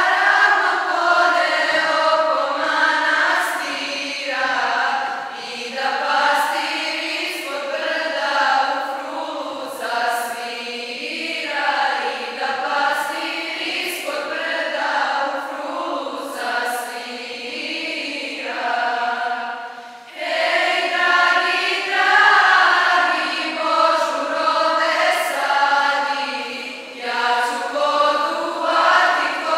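A choir singing a religious hymn in long, slow phrases, with a short break between phrases about two-thirds of the way through.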